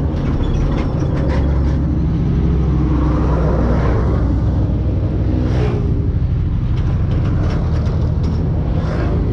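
Road traffic: large trucks passing close by, their engines rumbling steadily.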